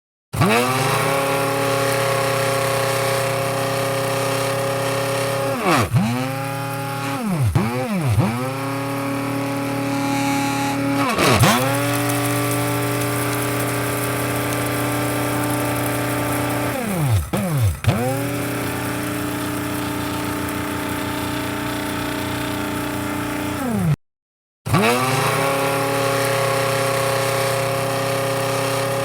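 Electric coffee grinder motor running with a steady whine. Several times its pitch drops sharply and climbs back, and about 24 seconds in it cuts out for half a second, then resumes at full speed.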